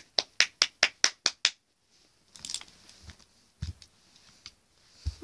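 A quick, even run of sharp clicks, about five a second, stopping about a second and a half in. Soft scattered handling noises follow, with a couple of low thumps.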